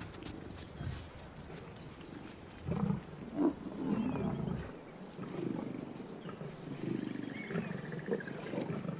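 Male lions growling at a buffalo calf they have brought down: low, rough calls, a louder pair about three seconds in, then repeated calls through the second half.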